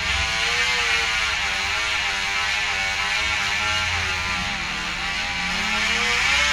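Young child imitating a motorcycle engine with his voice: one long unbroken buzzing hum whose pitch rises and falls again and again like an engine revving.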